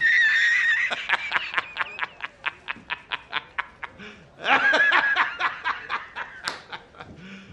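A man laughing hard. It opens with a high-pitched held cackle, breaks into rapid rhythmic ha-ha pulses that gradually fade, bursts into a second loud peal about halfway through, then trails off.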